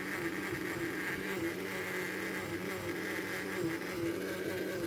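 Countertop blender running steadily, its motor giving a constant buzzing hum as it blends juice.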